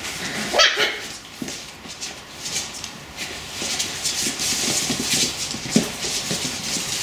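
Welsh Terrier puppies play-fighting, with a sharp yelp about half a second in and scattered small growls and yips, over the scrabble of claws on a laminate floor.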